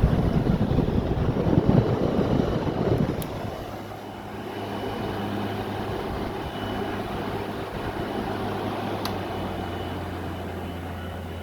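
Midea 5,000 BTU window air conditioner running with its compressor on: a steady low hum and a faint high whine over the rush of its fan air. The rush is louder and uneven for about the first three seconds, then settles.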